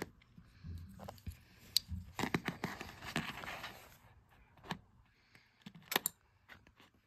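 Small plastic Lego pieces clicking and tapping as they are handled and set down on a cardboard play mat, with a stretch of rustling about two seconds in.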